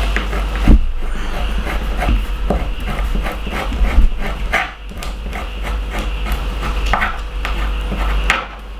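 A metal spoon scraping seeds from a split vanilla pod on a wooden chopping board: short, irregular scratches with a couple of sharp knocks on the board, one about a second in and a louder one about four seconds in.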